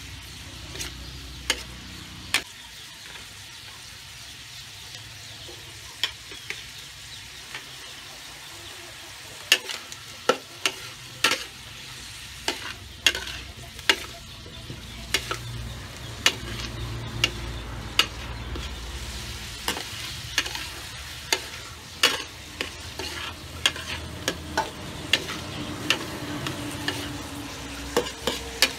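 Vegetables and sliced onion sizzling steadily as they fry in a steel wok, stirred and scraped with a metal spatula that clanks sharply against the pan at irregular moments, more often in the second half.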